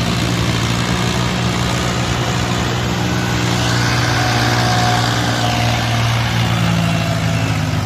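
Force mini tractor's diesel engine running steadily under load as it pulls a trailer up a dirt track, a little louder about halfway through as it passes close.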